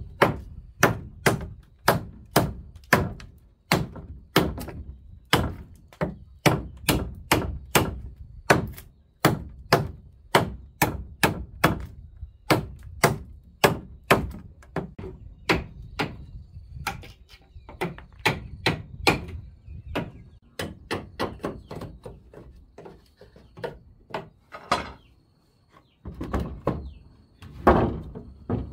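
Repeated sharp blows of a hand tool on the edge of a wooden floorboard, knocking the boards tight together. They come about two a second at first, then more unevenly, with a brief pause near the end.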